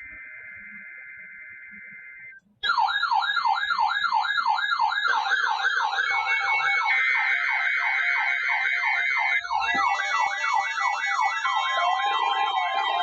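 A quieter steady buzzy tone for about two seconds, then loud electronic siren tones warbling up and down about three times a second, with further steady and pulsing alarm tones layered in as it goes on.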